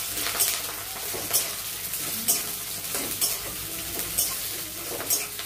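Onion pieces sizzling as they fry in mustard oil in a steel wok, stirred with a spatula that scrapes the pan about once a second.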